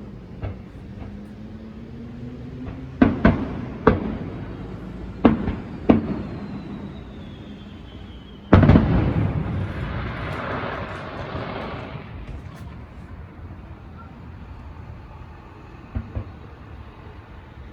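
Fireworks shells bursting: a handful of sharp booms, then a big burst about eight and a half seconds in that trails off into a few seconds of crackling, and one fainter boom near the end.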